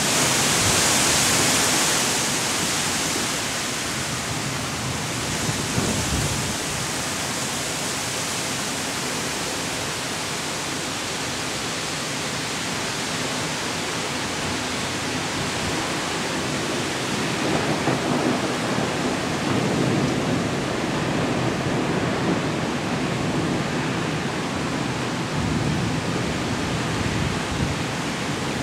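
Heavy thunderstorm rain with gusting wind, a steady loud hiss that is brightest in the first few seconds. In the second half, uneven low rumbling comes and goes under the rain.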